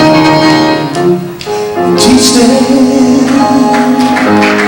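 A gospel song played by a band with vocals. About two seconds in, a singer holds one long, wavering note.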